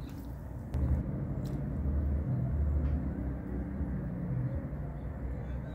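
Low rumble of a vehicle engine running in the background, swelling to its loudest about halfway through and then easing off.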